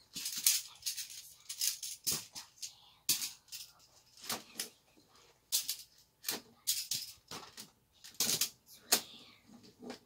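Plastic magnetic building tiles clacking and clattering as they are handled and snapped together, a string of irregular sharp clicks.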